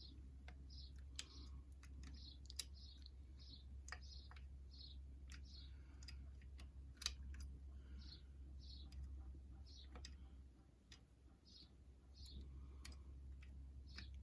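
Faint metallic clicks and short scrapes of a hooked pick wire lifting the levers inside a 3-lever mortise lock while a tension tool holds the bolt, repeating a few times a second over a low steady hum.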